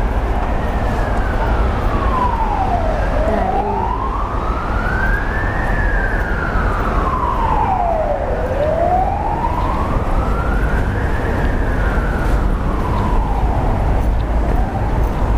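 Emergency vehicle siren wailing, one tone rising and falling slowly, a full cycle about every five and a half seconds, over a steady low rumble.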